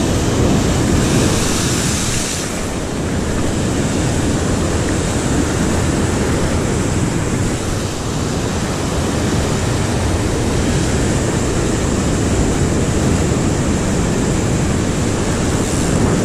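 Heavy surf on a rocky shore: waves breaking and washing white over the rocks in a steady, loud rush, with wind buffeting the microphone. A brighter hiss of spray swells briefly about a second in.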